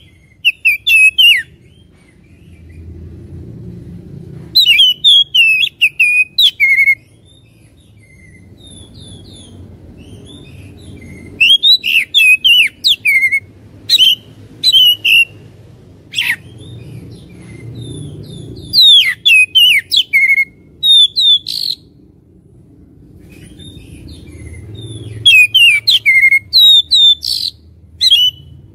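Oriental magpie-robin (kacer) singing loud bouts of quick rising and falling whistled notes, each bout a few seconds long with pauses between, over a faint low background rumble. This is the kacer's fighting song used as a lure to provoke other magpie-robins into singing.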